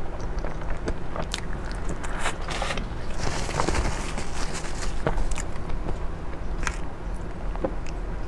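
Close-miked eating: bites and chewing of a chocolate-shelled cream dessert, with many sharp little crackles and clicks and a stretch of hissy rustle in the middle.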